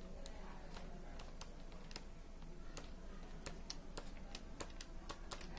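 Irregular light clicks and taps, several a second and uneven in spacing, like keys being typed, over a faint steady low hum.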